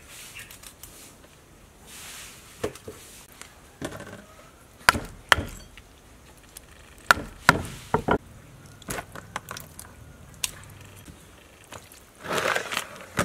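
A large kitchen knife chopping raw fish into steaks on a round wooden chopping board: about ten sharp, irregularly spaced chops as the blade goes through the fish and strikes the wood. A brief rustling noise comes near the end.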